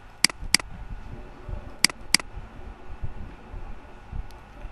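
Computer mouse clicking: two pairs of sharp clicks about a second and a half apart, over a low steady background hum.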